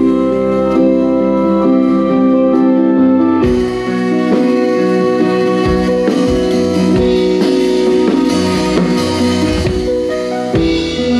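Instrumental music: held chords, with a drum beat joining about three and a half seconds in.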